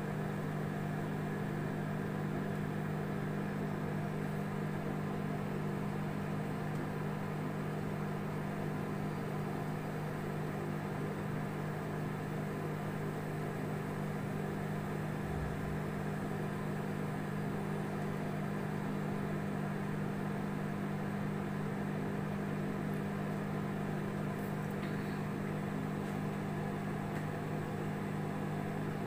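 Samsung microwave oven running with a steady low hum while it cooks.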